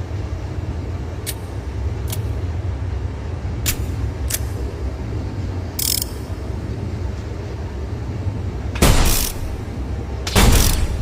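Revolver being handled and fired: a few light clicks, then two loud bangs about a second and a half apart, over a steady low rumble.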